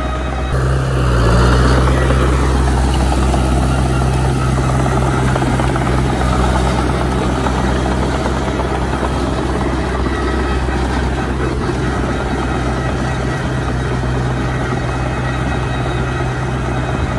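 Diesel engines of a small crawler dozer and a dump truck running steadily with a low throb, swelling about a second in, as the dozer pushes dirt and the truck's bed tips up.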